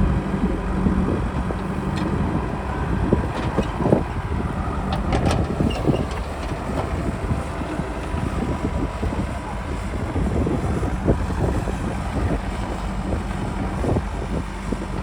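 Heavy diesel engine of farm or construction machinery running steadily, with a few scattered knocks in the first half.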